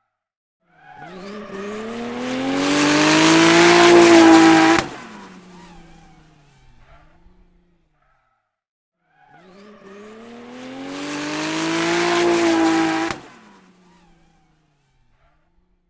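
Racing car passing by at speed, twice: the engine note climbs and swells for about four seconds as it approaches, then drops off suddenly at the pass, with a faint fading tail.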